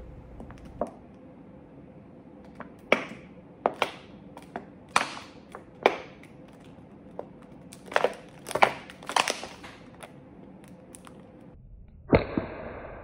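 Plastic water bottle crackling and crinkling in the hands, about seven sharp cracks scattered through, while the collected swamp gas burns at its neck. A louder rustle near the end.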